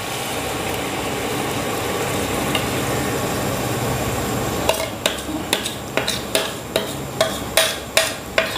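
Chicken masala sizzling in an aluminium pot as yogurt is poured over it. About five seconds in, a run of sharp taps starts, each with a brief ring, about two to three a second.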